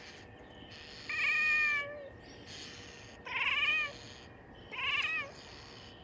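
Bengal kitten calling loudly at birds outside the window, three calls in a row. The first is the longest, and the last two are shorter with a quavering, trilling pitch.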